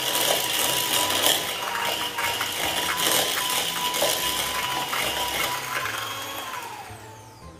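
Electric hand mixer running, its beaters clattering against the bowl as they cream butter and sugar, with a steady motor whine. About six and a half seconds in the motor is switched off and winds down, its whine falling away.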